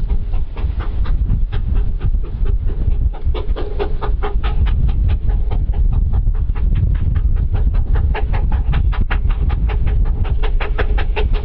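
A 15-inch gauge steam locomotive working past, its exhaust chuffing in a fast, even beat of about four to five a second that becomes distinct about three seconds in, over a low rumble of wind on the microphone.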